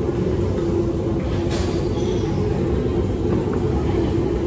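Steady low mechanical hum with a constant drone, and a brief hiss about a second and a half in.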